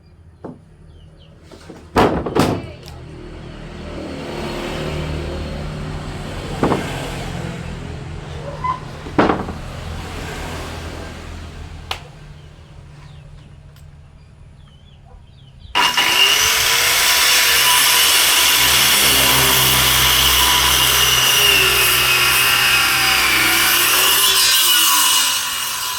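A few sharp knocks on wood, then a low motor hum. About two-thirds through, a loud electric power tool starts abruptly and cuts wood, its pitch sagging under load before it eases off near the end.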